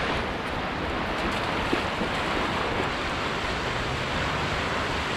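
Small sea waves breaking and washing up onto a sandy beach: a steady rush of surf.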